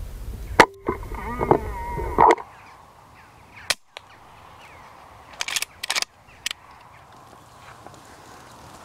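A sharp crack from a .22 air rifle firing at a young rook about half a second in, followed by a second or so of harsh bird calls. Later comes a single sharp click, then a quick cluster of several more sharp clicks.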